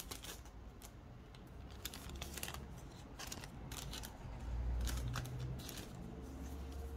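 Light rustling and scattered clicks of sunglasses packaging being handled, with a low dull rumble of handling from about halfway through.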